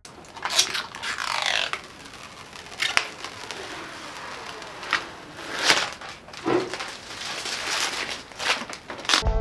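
Hands handling computer parts and packaging: rustling and scraping, with several sharp clicks and knocks scattered through.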